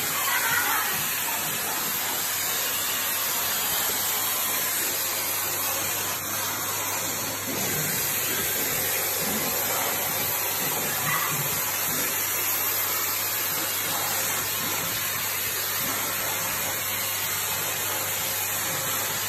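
Vacuum cleaner running steadily, a constant hiss over a low hum, as its crevice nozzle is drawn through a dog's thick coat.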